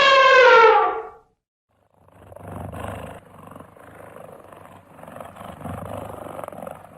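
A cat's drawn-out meow ends about a second in. After a short gap comes a quieter, rough, rapidly pulsing purr that swells twice.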